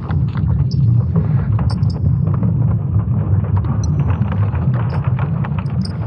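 Earth's magnetic field signals from ESA's Swarm satellites turned into sound: a deep, steady rumble with scattered crackles and ticks on top.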